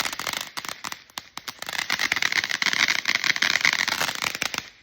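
Consumer firework going off: rapid crackling pops over a hissing spray, which stops abruptly near the end.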